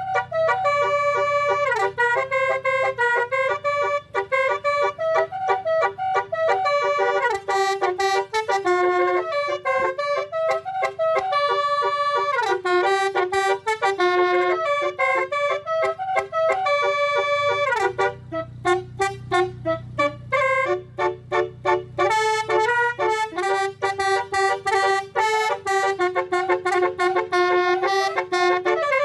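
Basuri 12-note telolet horn, a multi-trumpet musical air horn, playing a tune in quick stepped notes. About two-thirds through it breaks into a run of short clipped notes. A low hum runs beneath.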